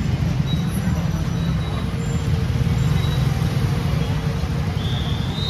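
City street traffic: a steady rumble of passing vehicles with voices in the background, and a short high rising tone near the end.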